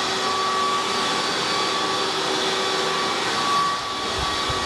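Vacuum cleaner running steadily: an even rush of air with a steady motor whine over it.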